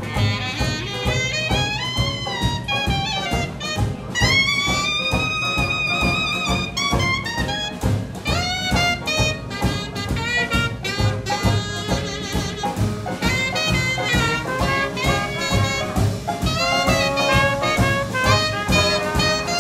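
Traditional New Orleans jazz band playing a swing tune: clarinet leading over banjo, upright bass, piano and drums on a steady beat, with a long held high note that bends upward at its start about four seconds in. Trumpet and trombone join the clarinet toward the end.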